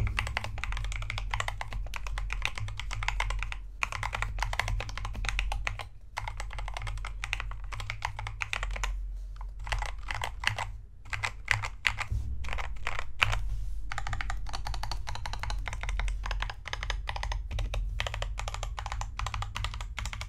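Typing on an Akko 3068B Plus mechanical keyboard: fast, steady runs of keystroke clacks with brief pauses, over a low rumble.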